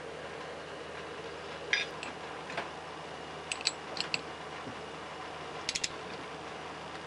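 Scattered short metallic clicks from a ratcheting torque wrench and a second wrench working the compressor wheel nut on a turbocharger shaft, including a quick run of three clicks near the end, over a steady low hum.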